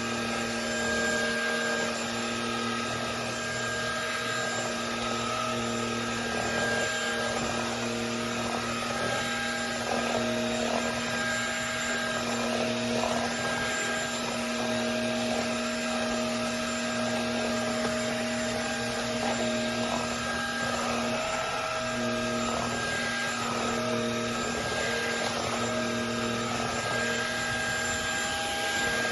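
MONSGA MV3 cordless stick vacuum cleaner running steadily: a motor whine over a rush of air, with small shifts in tone now and then.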